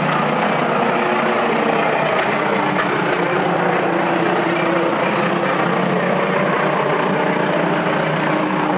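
Engines of a field of short-track pickup race trucks running at speed around the oval, blending into one steady drone.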